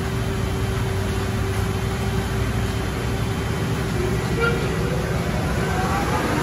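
Car wash tunnel machinery running with a steady low rumble and hum; about four seconds in, a motor starts to spin up, its whine rising in pitch.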